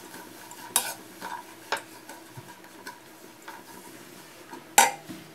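Wooden spatula stirring sliced onions as they sauté in oil in a non-stick pan, scraping and tapping against the pan with scattered clicks. The sharpest tap comes near the end.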